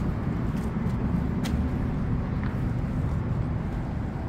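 Steady city road traffic from a wide multi-lane street, a continuous low rumble of passing cars.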